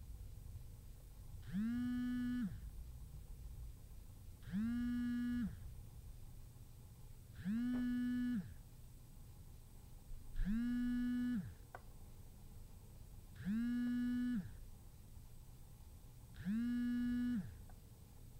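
Cell phone vibrating with an unanswered incoming call: six buzzes about a second long, one every three seconds, each sliding up in pitch as it starts and down as it stops.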